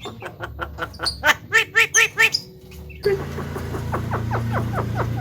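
Javan myna (jalak kebo) calling: a fast run of short, harsh repeated notes, about five a second. About three seconds in, a steady low hum comes in behind a further series of short falling notes.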